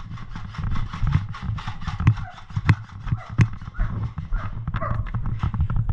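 Running footsteps of a player in gear, a quick, even thudding about three steps a second, with gear rattling and clicking along with each step.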